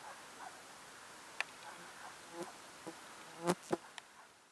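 Steady insect buzzing, with a few short squeaky calls and a brief cluster of sharp flutters and clicks about three and a half seconds in.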